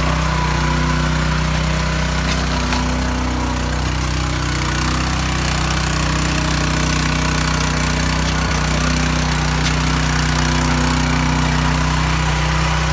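Small petrol engine of a walk-behind tiller running steadily as its tines churn a wet sand-and-cement mix.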